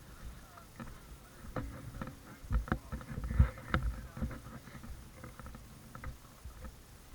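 Irregular clicks and knocks of airsoft gear being handled, with dull thuds, the loudest about three and a half seconds in.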